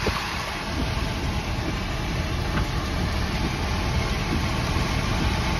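Steady roar of tornado-strength wind and rain buffeting a stopped vehicle, heard from inside the cab: a dense, even rush with a rough, fluttering low rumble.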